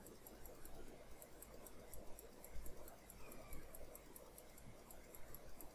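Faint, rapid computer mouse clicks, about four or five a second, over a low steady hum.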